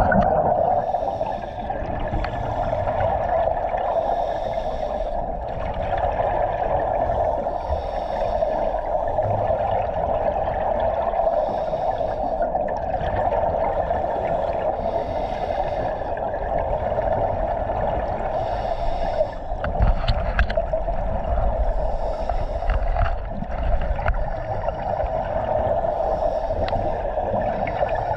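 Scuba diver breathing underwater through a regulator, with a rush of exhaled bubbles about every three to four seconds over a steady hum.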